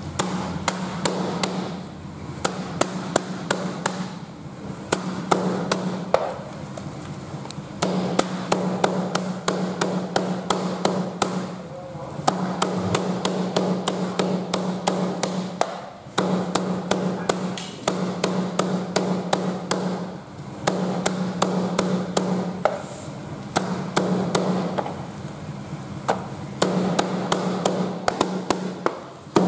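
A heavy cleaver chopping rapidly and steadily on a cutting board, mincing raw sea snake meat, with brief pauses every second or two.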